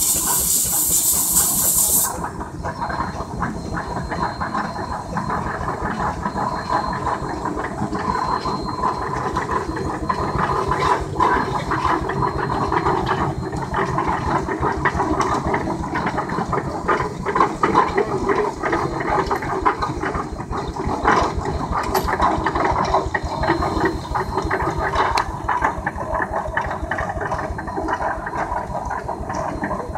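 Steam traction engine hissing loudly as steam vents, cutting off abruptly about two seconds in; then the engine running with a rapid, even exhaust beat as it drives past.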